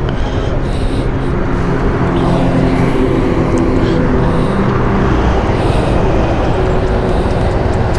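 Motorcycle engine running steadily while riding, under heavy wind and road noise.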